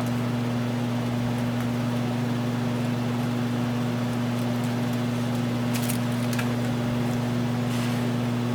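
Steady low mechanical hum with a faint hiss, like a running fan or air conditioner, with a few faint light taps near the end.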